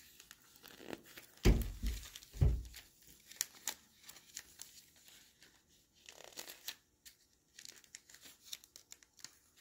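Thick iridescent cellophane wrap crinkling and crackling as it is handled and pulled from the roll. Two dull thumps come about a second and a half in and again a second later.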